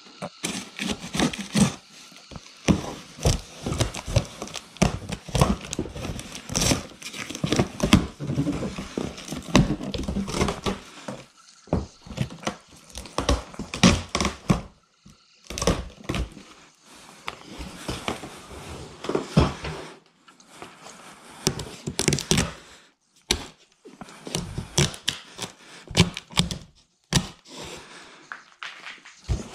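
Cardboard shipping box being cut open and pulled apart by hand: cardboard rustling and scraping, packing tape ripping, and knocks of the box against the floor, in irregular bursts with a few short pauses.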